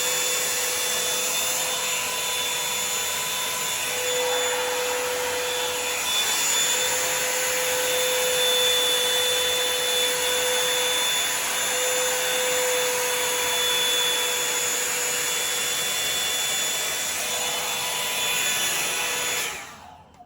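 Revlon One Step Volumizer hot-air brush running on hair, a steady rush of air over a motor whine, then switched off abruptly near the end.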